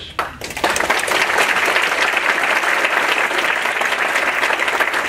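Audience applauding: a dense, steady clapping that starts about half a second in.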